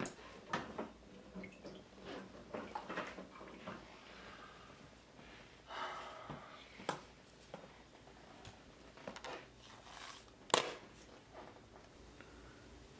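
Kitchen handling noises: utensils and containers being picked up and set down on a stone countertop, with scattered light clicks and a brief rustle, and one sharp knock about two-thirds of the way through.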